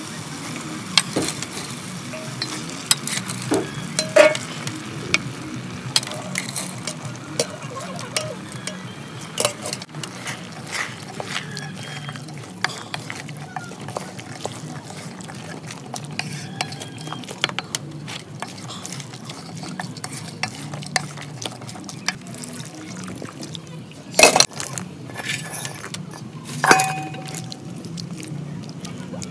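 A wooden spoon stirring beans and vegetables in a metal cooking pot, with many small scrapes and knocks against the pot over a steady sizzle of frying. Two louder knocks come near the end.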